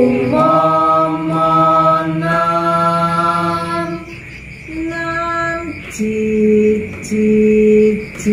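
Unaccompanied singing of a Javanese tembang macapat Pangkur melody, sung note by note from cipher notation. Long held notes with small slides between pitches, a short pause about four seconds in, then a few shorter held notes.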